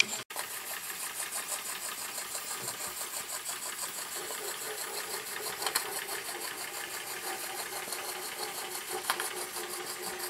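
Retrol model walking-beam steam engine running on live steam, an even, rapid mechanical ticking from the single-acting piston, spool valve and linkage as the flywheel turns.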